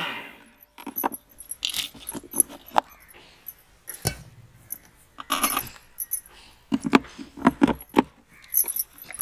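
Electric mixer grinder's motor dying away as it is switched off, then a run of sharp metallic clinks, taps and knocks as the steel grinder jar is lifted off, handled and tipped over a steel bowl to empty the powdered sugar. One heavier knock comes about four seconds in.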